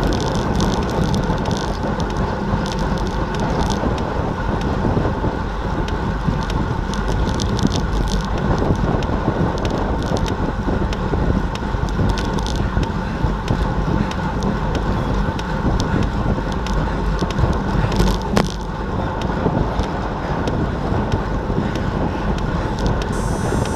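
Steady wind noise on an action camera's microphone and tyre-on-road noise from a road bike riding at about 44 km/h, with a sharp click about 18 seconds in.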